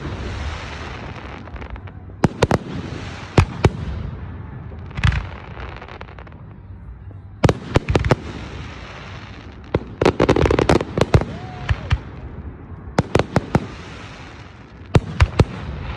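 Aerial firework shells bursting overhead in clusters of sharp bangs a few seconds apart, each cluster trailing off in a hiss as the stars burn out.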